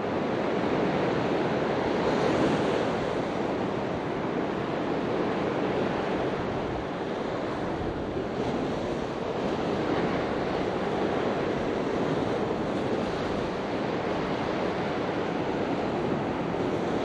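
Ocean surf washing onto a beach, a steady rush that swells and eases slowly, with wind on the microphone.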